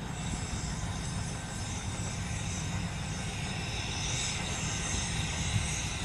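Diesel-electric locomotives running as they roll slowly along the track: a steady low rumble, with a thin high hiss over it.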